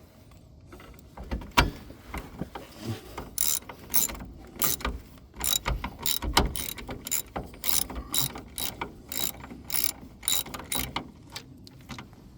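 Hand ratchet wrench clicking in short back-and-forth strokes, about two clicks a second, as a shock absorber mounting bolt is run in.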